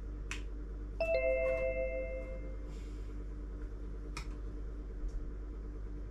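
A two-note electronic chime, like a doorbell's ding-dong: a higher note followed almost at once by a lower one, fading over about a second and a half. A couple of light clicks come from the table, one near the start and one about four seconds in, over a low steady hum.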